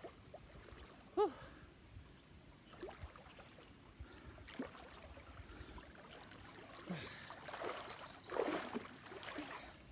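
Faint water sounds of a swimmer in a pond standing up and wading out, with the splashing and swishing of water growing louder from about seven seconds in. A short pitched call rises and falls once, about a second in.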